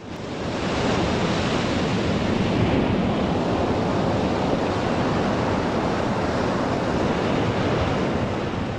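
Sea surf washing in a steady, dense rush, fading in over about the first second.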